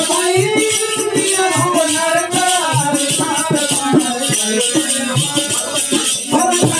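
Hindi devotional bhajan music: a singing voice with a wavering melody over rhythmic hand percussion with a rattling, jingling edge.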